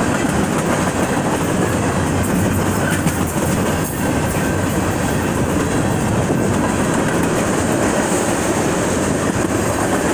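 Freight train of covered hoppers and tank cars rolling past at close range: a steady, loud noise of cars and wheels running over the rails.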